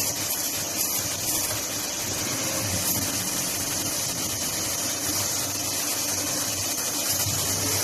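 CNC cutting machine for pre-insulated duct panels running, a steady hiss with a low hum underneath.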